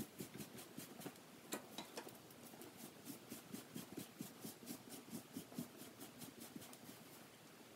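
StripHair Gentle Groomer rubber brush stroking a dry cocker spaniel's coat: faint, quick rubbing strokes, a few a second.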